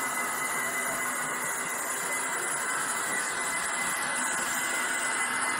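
Gauge 1 model SBB BDe 4/4 railcar running along the track, its running noise carrying a steady high-pitched screech. The screech is the sign of a locomotive that needs oiling.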